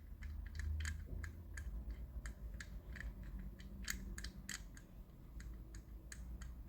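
Light, irregular clicks and taps, a few a second, from handling a small model fire truck while dabbing a chrome paint pen onto its hubs.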